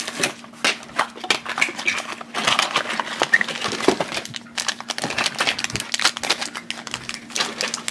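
Crinkling and crackling of plastic toy packaging opened by hand: a small plastic blind-pack box clicked open and a thin plastic bag inside torn, in irregular bursts of clicks and crinkles.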